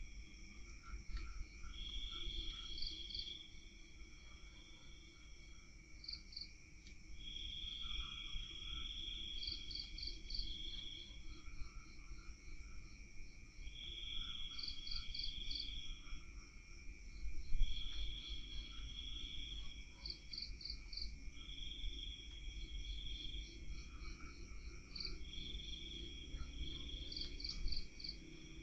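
Night insects calling, crickets among them: a steady high trill throughout, and a louder pulsing trill that comes in bouts of one to two seconds every few seconds. A low rumble runs underneath.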